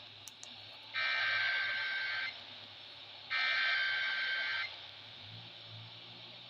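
Emergency Alert System SAME header bursts, received over AM radio: two harsh, buzzing digital data bursts of about 1.3 s each, a second apart, that open a Required Weekly Test.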